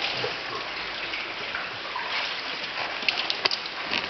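Steady rush of running water, with a few light splashes and clicks about three seconds in.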